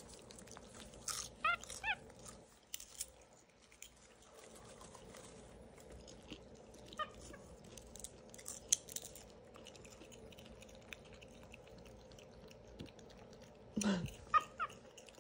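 A capuchin monkey's short, high squeaky chirps: a quick run of them about a second and a half in and a few more near the end, over soft crunching and chewing of popcorn.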